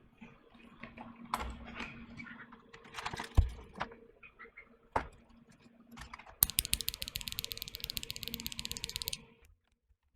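Typing on a tenkeyless mechanical keyboard fitted with unlubed Akko CS Silver linear switches: scattered keystrokes with one heavier thud a few seconds in, then a fast, even run of keystrokes for about three seconds before it stops.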